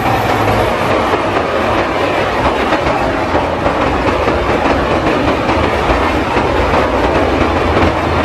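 An Indian Railways train passing at speed: wheels clattering over the rail joints in a loud, steady rush of noise.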